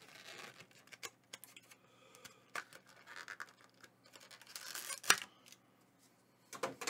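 Clicks, scrapes and crinkles of hands handling a Pokémon card tin's plastic packaging and cards, in irregular short bursts with one sharp click about five seconds in.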